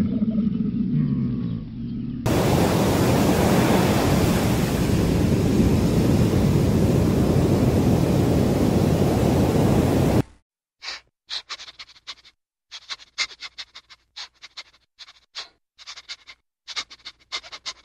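A camel's low grumbling call fades out, then a loud steady hiss starts suddenly and runs for about eight seconds. It cuts off abruptly into a string of short crisp clicks and crunches with silences between them.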